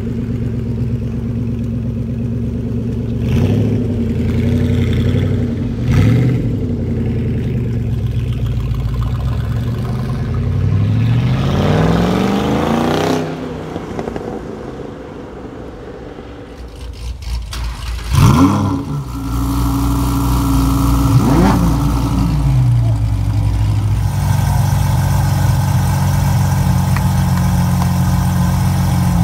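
A first-generation Ford GT's supercharged V8 running at low speed with two short rev blips, then accelerating away with a rising pitch about 10 to 13 seconds in. After a quieter stretch, a car engine gives two sharp rev blips about 18 and 21 seconds in, the first the loudest sound here, and an engine idles steadily from about 24 seconds on.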